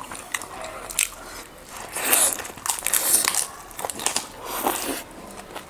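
Close-miked eating: biting into and chewing meat lollipops on the bone, with scattered sharp crunchy clicks and wet mouth sounds.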